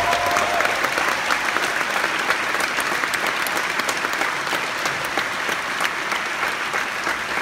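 Audience applauding at the end of a song, dense clapping that holds steady throughout. The song's last held note dies away under the clapping in the first second.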